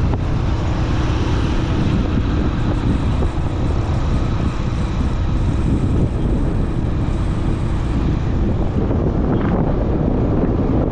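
Steady wind rumble buffeting the microphone over a running motorcycle engine, heard from the back of a moving motorcycle.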